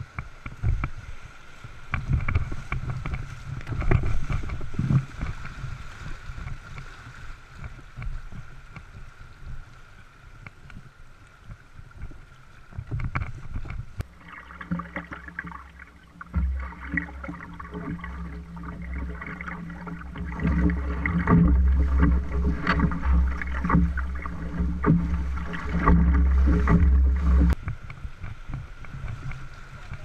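Whitewater rushing and splashing around a moving canoe, with paddle strokes and occasional knocks against the hull. About halfway through the sound changes to a louder, steadier low rumble, which gives way again near the end.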